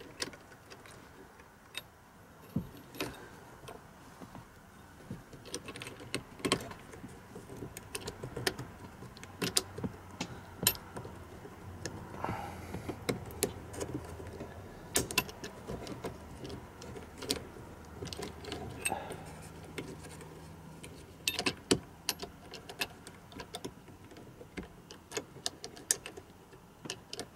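Scattered small clicks and rattles of a plastic reflector and an LED 194 bulb being fiddled into an overhead map-light housing.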